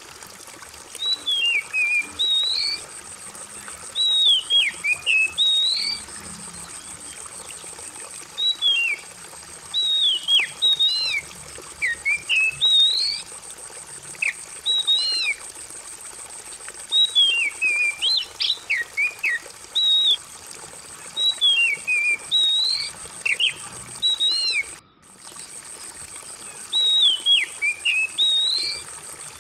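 Oriental magpie-robin singing short, loud whistled phrases that sweep up and down, one every second or two, over steadily trickling water and a thin steady high tone. All sound drops out for a moment near the end.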